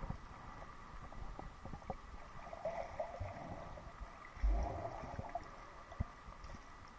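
Muffled underwater sound picked up by a submerged camera: scattered soft low knocks and bumps, with two short gurgling bursts, the second starting with a low thump about four and a half seconds in.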